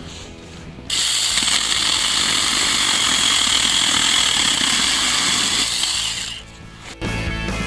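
Saker mini cordless electric chainsaw running and cutting through a branch. It starts about a second in, runs steadily for about five seconds and then stops. Background music comes in near the end.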